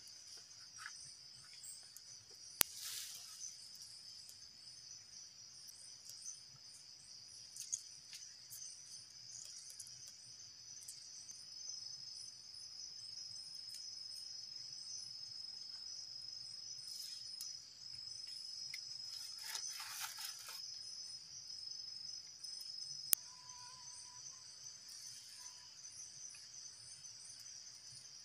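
Steady high-pitched chorus of insects calling in the forest, like crickets. Two sharp knocks or clicks break through, a few seconds in and again near the end, with a brief rustle of movement about twenty seconds in.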